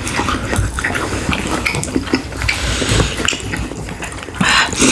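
Close-miked wet chewing and mouth smacking of a saucy meal, made up of many small clicks and wet noises, with a louder wet burst near the end.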